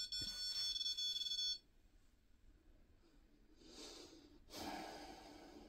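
A steady, high electronic whine of several tones cuts off suddenly about a second and a half in. After a pause, two soft breaths follow, the second one longer.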